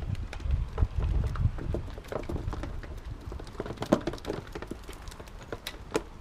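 Irregular sharp taps and knocks as mackerel on a string of feathers are reeled in and swung up over a harbour wall, with a low rumble for the first couple of seconds.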